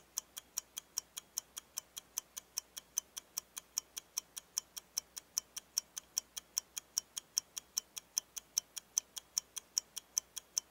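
Clock ticking sound effect laid over the sped-up footage: even, sharp ticks about four a second.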